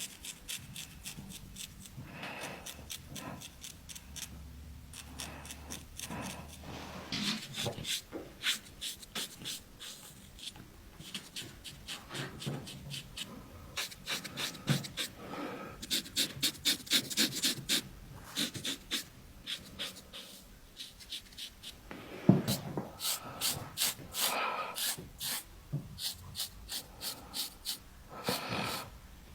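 A razor scraping across facial stubble in short, quick strokes, several a second, coming in runs with brief pauses between them.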